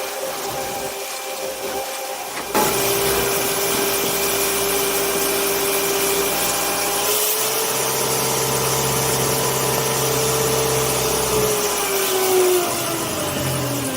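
Heavy machinery engine running with a steady whine. It jumps louder about two and a half seconds in, the whine steps slightly higher midway, then falls in pitch near the end as the machine slows down.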